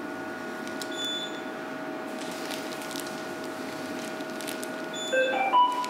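Operating-room equipment during a laparoscopic operation: a steady electronic hum with constant tones, a short high beep about a second in, and near the end a quick run of electronic beeps stepping up and down in pitch.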